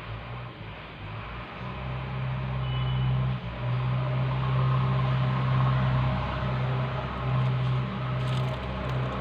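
A steady, low mechanical hum of an engine or motor running. It grows louder over the first two seconds and then holds, with a brief dip about three and a half seconds in.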